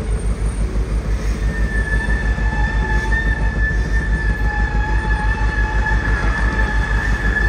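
A ship-to-shore container crane hoisting a loaded twin-container spreader: a steady high whine from the hoist machinery comes in about a second and a half in. It runs over a constant low, rhythmic throb.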